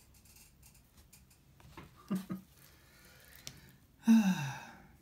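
Faint rustling and a click as plastic-sleeved album pages are handled and turned. About four seconds in comes the loudest sound, a man's drawn-out vocal exclamation falling in pitch, with a shorter voiced sound about two seconds in.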